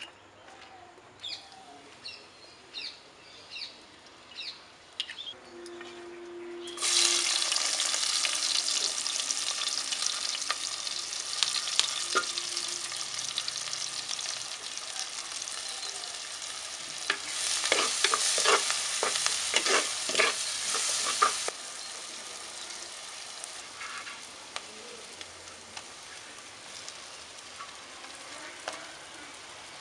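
Onions, curry leaves and green chillies tempering in hot oil in a clay pot. The sizzling starts suddenly about seven seconds in, after a quiet start with a few short chirps. A wooden spoon stirs and scrapes through the loud sizzle, which drops to a quieter sizzle about two-thirds of the way in.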